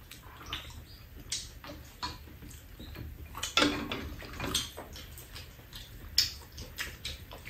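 Wet chewing and mouth sounds of people eating, with a few short clicks and taps of chopsticks against bowls scattered through.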